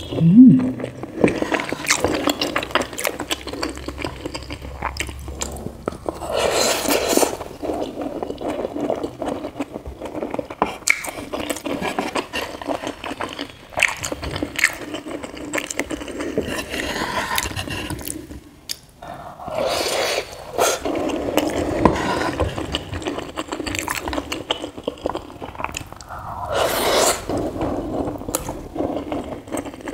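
Close-up eating sounds of creamy macaroni: wet chewing and mouth smacks in irregular bursts, with a wooden spoon scraping against the pan as more pasta is scooped up.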